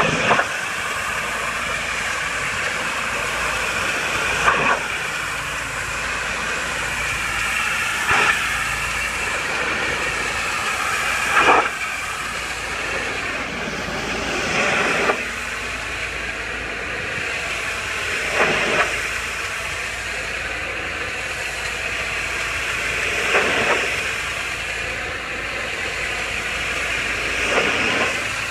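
Pressure washer jet spraying a brick wall: a steady hiss with a brief louder surge about every three to four seconds.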